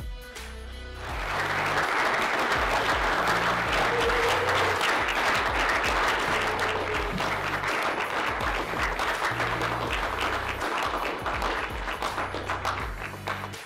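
Audience applauding, starting about a second in and thinning out near the end, over background music.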